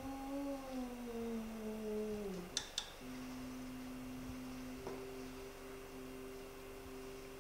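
Zeiss Visalis 100 phacoemulsification machine's feedback tone, a pitched tone that wavers as it follows the aspiration vacuum and slides down about two and a half seconds in. Two sharp clicks follow, then the machine settles into a steady two-note tone.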